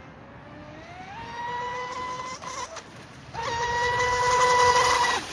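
Cozy RC M700 electric RC boat running on 4S, its motor and two-blade prop giving a high whine that rises in pitch to a steady tone about a second in, fades out briefly, then comes back louder at full throttle and cuts off suddenly near the end.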